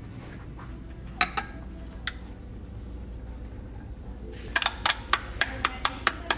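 Sharp glassy clinks of tapping against a glass beaker to knock powder down into it: a few single taps, then a quick run of about three or four taps a second starting about four and a half seconds in.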